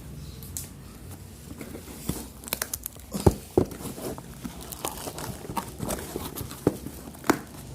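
Thick cardboard shipping box being opened by hand: irregular rustling, scraping and tearing of the cardboard, with several sharp knocks, the loudest a little over three seconds in and another near the end.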